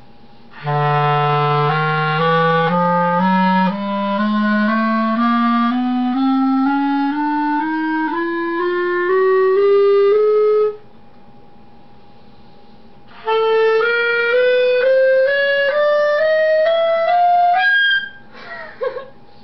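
Clarinet playing a slow rising scale, one held note after another, from its lowest notes upward. It stops for a couple of seconds, then climbs on through the next register. A short wavering sound follows near the end.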